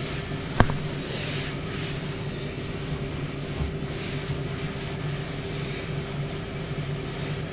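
A cloth rubbing and brushing close to the microphone, with one sharp click about half a second in, over the steady hum of a Tower air fryer running.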